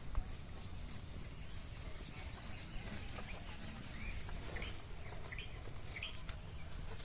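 Outdoor field ambience: small birds calling in short rising chirps, several in a row in the second half, with a thin high trill about a second and a half in, over a steady low rumble.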